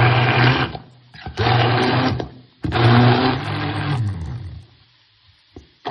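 Immersion (stick) blender motor running in three short bursts, puréeing cooked Brussels sprouts in a stainless steel pan. The last burst winds down, falling in pitch, and the motor goes quiet near the end.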